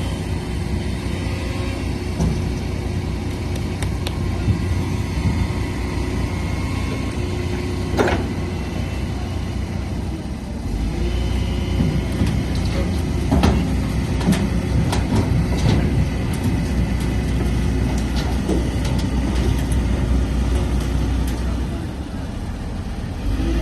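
Excavator engine running steadily, with a few sharp knocks. The low rumble grows stronger about eleven seconds in and eases again near the end.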